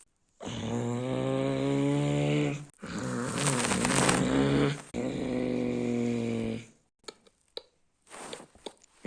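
Mansory Rolls-Royce Cullinan's twin-turbo V12 engine revved and held three times, each rev a steady drone, with a hissing rush during the second; a few faint clicks follow.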